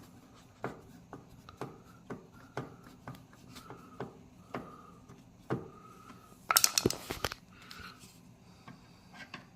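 Hand work on a dishwasher's metal and plastic panels: a series of sharp clicks and scrapes about once a second, several with a short squeak after them, and a loud rattling burst of clicks about six and a half seconds in.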